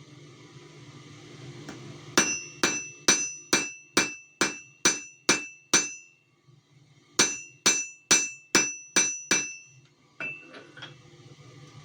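Blacksmith's hammer striking hot metal on an anvil while forging a leaf: a run of about nine blows at roughly two a second, a pause, then six more, each with a short ring. A single lighter knock follows near the end, over a steady low hum.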